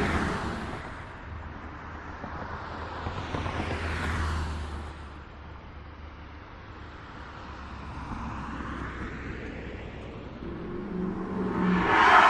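Road traffic: cars passing by. The noise swells about four seconds in, fades, then builds again near the end.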